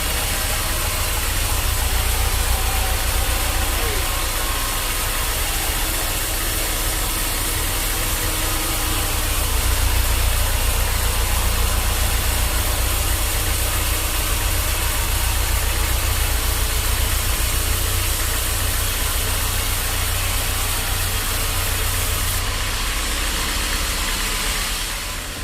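Sawmill machinery running steadily, a deep engine drone under a broad hiss. The hiss eases near the end.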